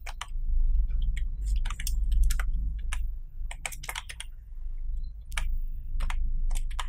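Computer keyboard being typed on: irregular, separate key clicks in short runs as a line of text is entered, over a steady low hum.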